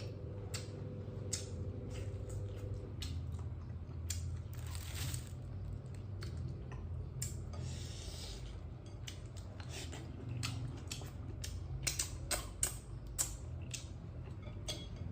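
Scattered small clicks, taps and rustles of food and tableware being handled at a meal, with a couple of brief swishes, over a steady low hum.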